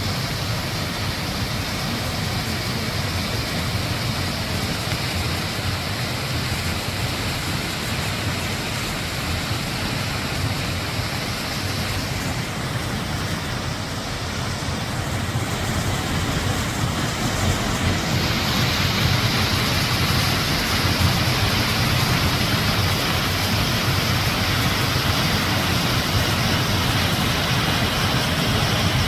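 Steady rushing of water pouring over Jaein Falls, the waterfall swollen with rainy-season water. The rush thins briefly about halfway through, then grows a little louder and brighter.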